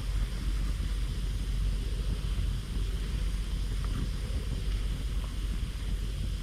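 Wood campfire of gathered branches and driftwood burning in a fire pit: a steady low rumble with a few faint crackles.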